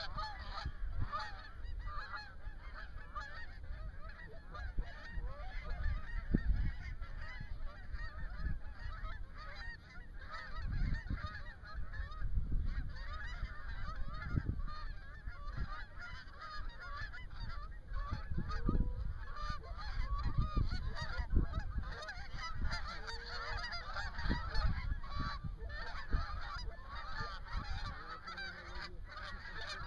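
A large flock of geese honking, many calls overlapping continuously as the birds circle low over the decoys. A low rumble runs underneath.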